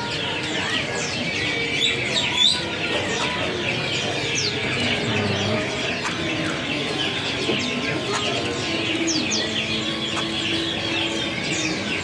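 Many caged songbirds chirping and whistling at once, a dense, steady chatter of overlapping short calls.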